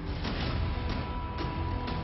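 Background music with a steady beat about twice a second over deep bass and a held tone.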